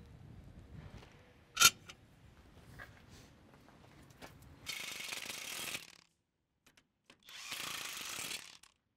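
A sharp metallic clank about one and a half seconds in, then a cordless impact driver running in two bursts of about a second each, driving home the bolts of a chopping plate on a corn head's stalk roll.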